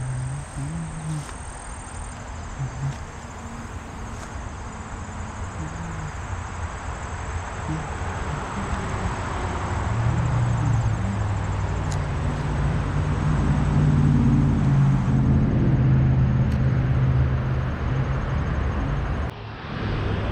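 Highway traffic noise, a steady rush of passing vehicles, with one engine's low drone swelling through the middle of the stretch and easing near the end.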